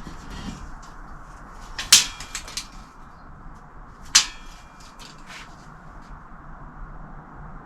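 Two sharp metallic clacks about two seconds apart, each with a short ring, among lighter handling clicks.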